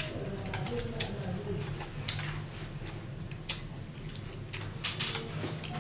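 Eating at a table: chopsticks and a fork clicking and scraping against a metal tray, with chewing between bites. There are about a dozen sharp, irregular clicks.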